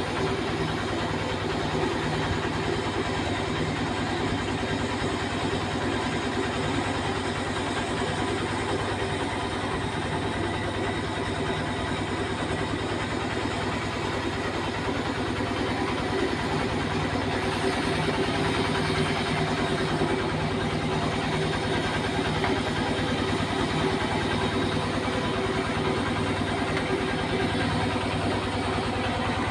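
An engine running steadily at one unchanging speed, a constant low drone.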